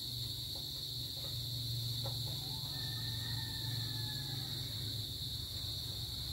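Steady high-pitched drone of crickets over a low, steady hum. A faint, long, slightly falling whistle, likely a bird, comes about three seconds in.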